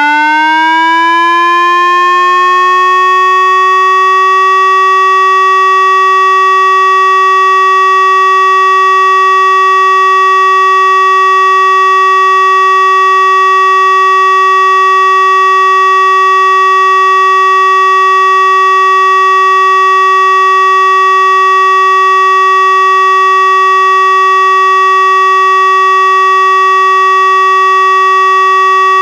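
Tesla UEAJ electronic warning siren sounding the Czech "siren test" (Zkouška sirén) signal, a continuous steady tone. Its pitch climbs for about the first four seconds, then holds level.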